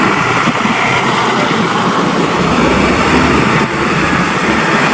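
A steady, loud rush of water spraying onto a muddy toy vehicle as it is washed clean.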